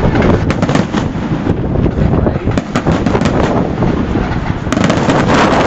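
Fireworks going off in a rapid run of bangs and crackles, thickening near the end, over heavy wind noise on the microphone.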